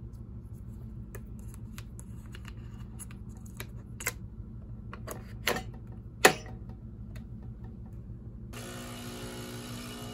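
A scatter of small sharp clicks and taps, the loudest about six seconds in, over a steady low hum; background music comes in near the end.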